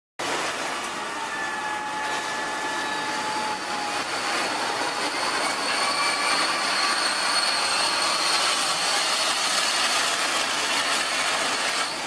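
Industrial drum wood chipper running, a steady dense mechanical rush with thin high-pitched whines over it.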